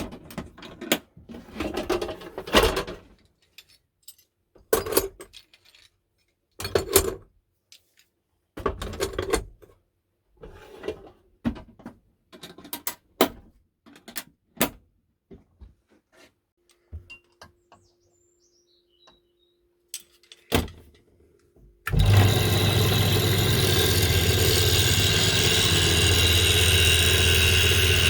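Irregular short scrapes, knocks and clicks of hand work on a metal pipe wrench. About 22 seconds in, a power drill starts and runs steadily with a low hum, drilling into the wrench.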